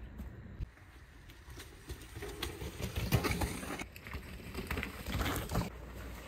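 Trek Procaliber 9.6 carbon hardtail mountain bike ridden over rough ground: tyres rolling, with irregular knocks and rattles over bumps, louder from about two seconds in.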